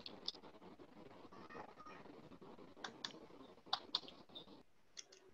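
Faint, scattered light clicks and taps over a low hiss. The hiss drops away about four and a half seconds in.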